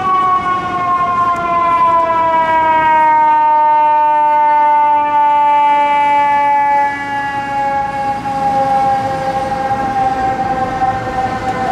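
A fire engine's mechanical siren, a Federal Q2B, coasting down in one long, slowly falling wail. Street traffic runs underneath.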